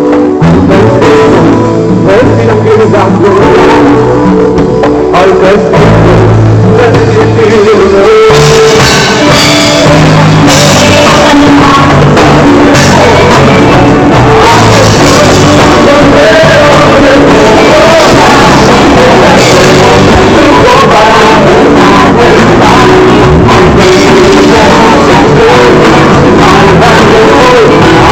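Live band playing a song with singing, guitar and drums, very loud. The sound grows brighter about eight seconds in.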